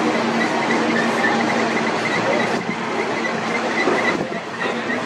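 Escalator running with a steady mechanical hum and rumble, over the continuous background noise of a busy pedestrian area.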